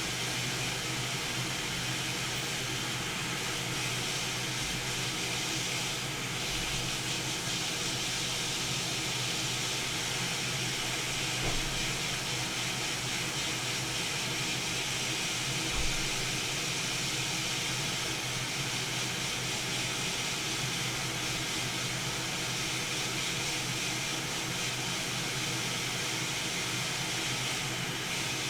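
Hot air rework gun blowing with a steady hiss while heating a circuit board from below to melt the solder on a power button. There are a couple of faint taps partway through.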